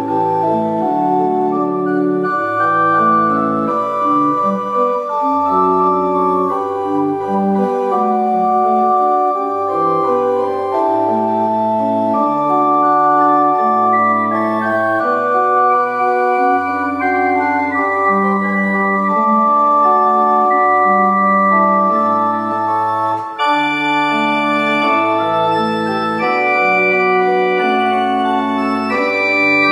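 Historic English pipe organ, with wooden and metal pipes, playing slow sustained chords that change about once a second over a moving bass line. The tone turns brighter about three-quarters of the way through.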